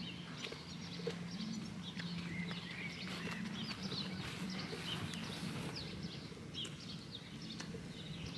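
Birds chirping and singing in many short high calls, over a steady low drone from a distant engine.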